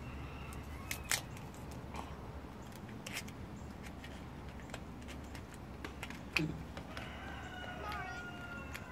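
Scattered sharp clicks and crinkles of fingers picking at the tape and wrapping on a small gold gift box, the loudest about a second in and about six seconds in. A faint drawn-out call is heard in the background near the end.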